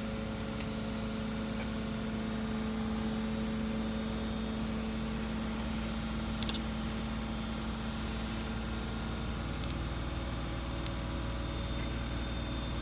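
Steady low mechanical hum like an idling engine, holding even throughout, with a light click about six and a half seconds in.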